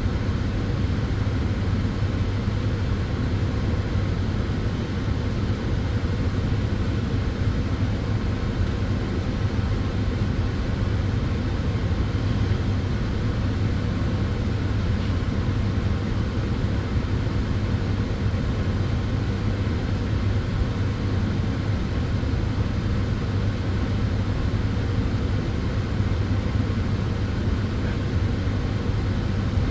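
Sunbed (solarium tanning bed) running: a steady rushing noise with a steady low hum underneath.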